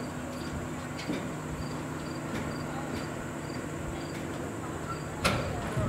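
Steady background noise of a game in progress, with a constant low hum and a high steady tone, and a faint chirp repeating about twice a second. A single sharp knock comes near the end.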